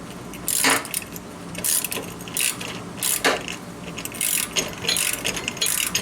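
Hand ratchet clicking in a series of short back-and-forth strokes, turning a 15 mm bolt on a mower deck pulley to loosen it.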